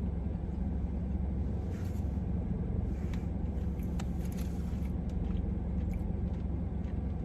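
Steady low rumble of background noise, with a few faint clicks or rustles scattered through it.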